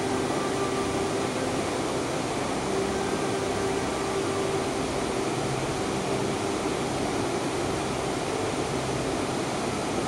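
Steady rush of a fast river flowing over rocks.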